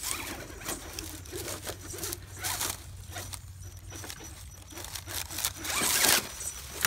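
Irregular scraping and rustling of an RC rock crawler's tyres and chassis against rocks and dry leaves as it climbs a rock pile, loudest near the end.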